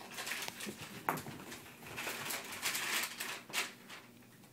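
Kittens playing with foil balls on carpet: a scatter of light taps, scuffles and rustles, with a sharp click about a second in and a busier stretch of scuffling in the middle.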